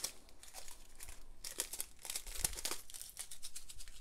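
Small clear plastic bags of diamond-painting drills crinkling as they are handled and sorted, in quick clusters of rustles, busiest a little past halfway.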